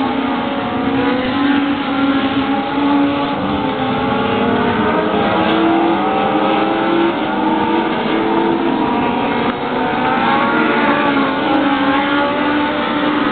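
Several oval-track race cars' engines running at race speed as the cars circle the track, with engine notes overlapping and rising and falling as they accelerate and pass.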